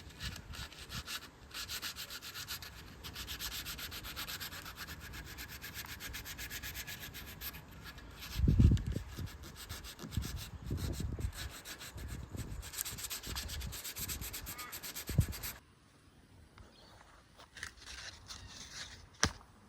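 Sandpaper rubbing over cured resin on a fibreglass boat hull in fast, even, scratchy strokes, with a few dull knocks along the way. The sanding stops about three-quarters of the way through, leaving only faint scattered clicks.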